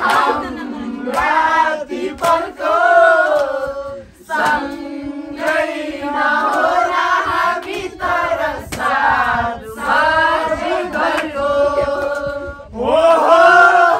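A group of people singing a song together, with women's voices to the fore. There are short breaks between phrases about four seconds in and again near the end.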